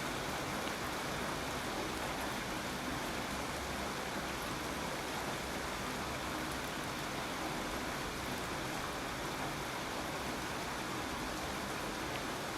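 Steady rain falling, an even unbroken hiss with a few faint drip ticks.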